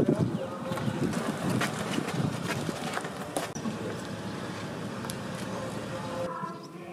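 A 7.5-inch gauge ride-on miniature train running along the track: a steady mechanical running noise with scattered sharp clicks, which drops off abruptly near the end.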